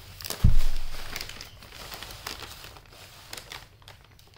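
A cat eating dry kibble from a thin clear plastic tub: irregular crisp crunching, with the tub crinkling and clicking as its head pushes into it. A single deep thump about half a second in is the loudest sound.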